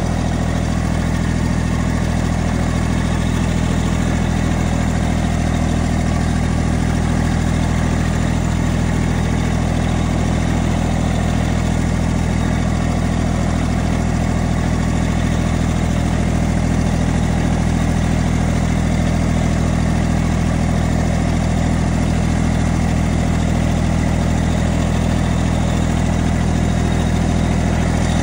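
Massey Ferguson GC1723E compact tractor's three-cylinder diesel engine running steadily at idle.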